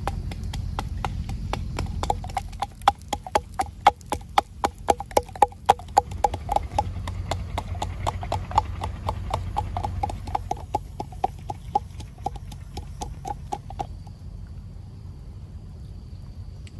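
Pestle pounding garlic and chili in a mortar: an even run of knocks, about three a second, each with a short ring, that stops about fourteen seconds in.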